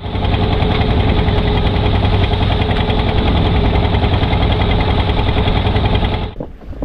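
A fishing boat's engine running loud and steady at close range; it comes in abruptly and cuts off suddenly near the end.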